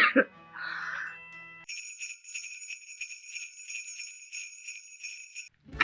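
Jingle bells shaken in a quick, even rhythm for about four seconds, starting about a second and a half in and stopping sharply just before the end.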